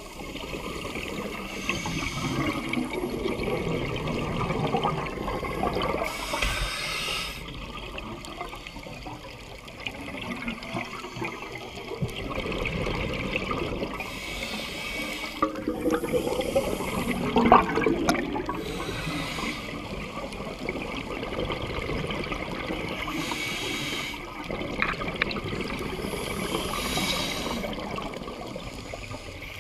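Underwater sound of scuba divers breathing through regulators, heard through a camera's underwater housing: a steady gurgling water hiss, with a rush of exhaled bubbles about every four to five seconds.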